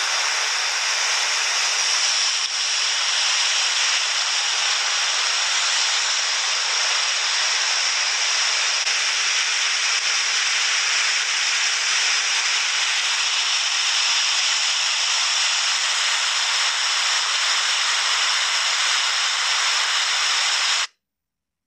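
Swollen, fast-running floodwater of a creek rushing and churning over rapids, a steady noise of water with no let-up. It cuts off suddenly near the end.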